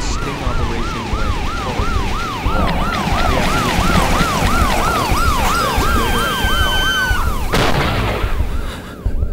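Emergency-vehicle siren in a fast yelp, rising and falling about three times a second, over dense street noise with other siren wails. Near the end a steady held tone sounds briefly, then a sudden loud hit, after which the sirens fade.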